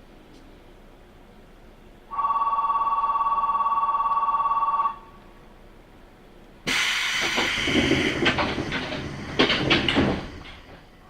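A train stands at a station while an electronic departure buzzer sounds steadily for about three seconds. After a short pause comes a sudden loud rush of hissing and clattering from the car's doors closing, which lasts about four seconds and dies away near the end.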